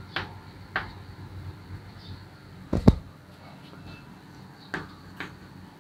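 Chalk writing on a blackboard: a handful of short, sharp taps and light scrapes as the chalk strikes and drags across the board, the loudest a deeper knock a little under three seconds in.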